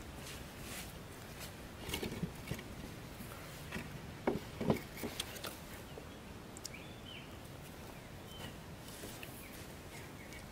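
Light handling noises: a few soft knocks and clicks of hands working string and a small wooden trigger stick on a concrete box trap, clustered about two seconds in and again around four to five seconds in.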